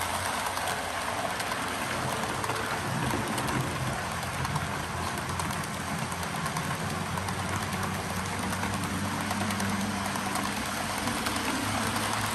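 Model train's passenger cars rolling past on the track: a steady hissing rattle of small metal wheels on the rails, with a low steady hum underneath.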